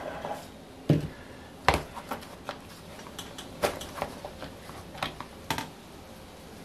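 Scattered clicks and knocks of a clear plastic tool case being handled and set down on the work bench, about eight in all, the sharpest two about one and two seconds in.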